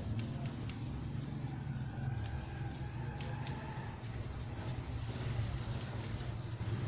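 Steady low mechanical hum filling the barber shop, with faint snips of barber's scissors trimming a beard.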